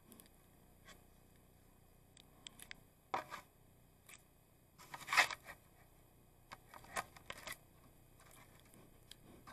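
An animal's fur and body brushing and scraping against a trail camera at close range: a string of short scrapes and rustles, the loudest about halfway through.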